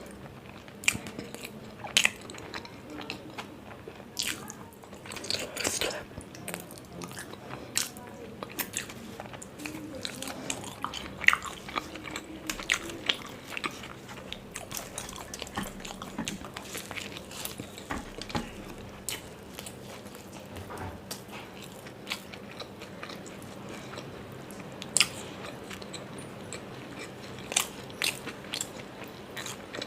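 Close-up eating of stuffed parathas: biting and chewing, with irregular sharp crunches and crackly mouth clicks.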